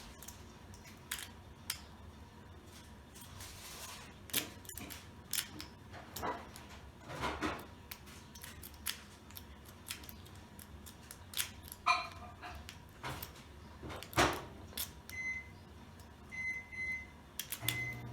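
A homemade metal-strapping lockpick rake scrubbing in and out of the keyway of an American Lock 1100 padlock against its serrated and spool security pins. It makes irregular metallic scrapes and small clicks, some sharper than others, with no opening yet.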